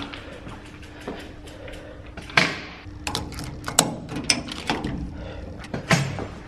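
A string of sharp clicks and knocks from a door being unlocked and opened, with a faint steady hum underneath.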